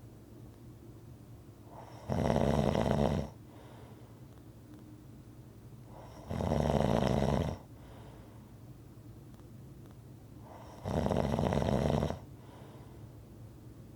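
A person snoring in a steady rhythm: three snores about four seconds apart, each lasting just over a second, with quiet gaps between.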